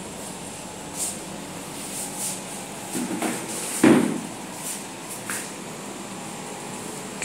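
Swivel TV wall-mount arm being handled: a few light clicks and a heavier clunk about four seconds in. Under it runs the steady hum of a window air conditioner.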